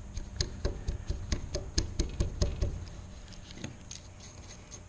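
A 3/4-inch Marples chisel pushed by hand, without a mallet, paring wood from the bottom of a groove in short strokes. About ten crisp cutting clicks come at roughly four a second, then fainter ticks after about two and a half seconds.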